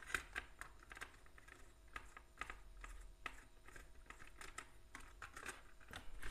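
Faint, irregular light clicks and scrapes of a screwdriver working a terminal screw on a plastic switch board socket, with the plastic board being handled.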